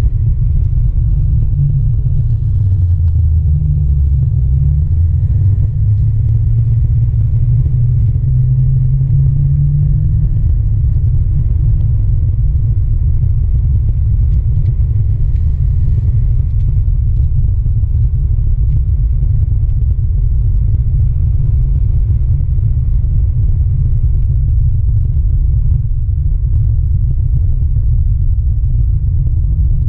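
Steady, loud low rumble of a OneWheel rolling along an asphalt path, heard through a camera mounted on the board. A low tone wavers up and down in pitch over the first ten seconds.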